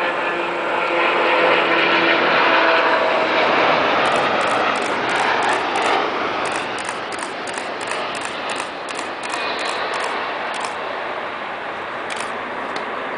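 Boeing 777 jet engines passing close on landing: a loud rush of engine noise with whine tones that shift in pitch over the first few seconds, easing off as the airliner rolls away down the runway. A faint, even run of high ticks, about three a second, sits over it from about four to eleven seconds in.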